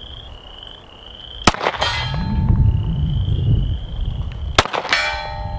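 Two 9mm shots from a Mossberg MC1 subcompact pistol about three seconds apart, each followed a moment later by the ringing clang of a distant steel target being hit.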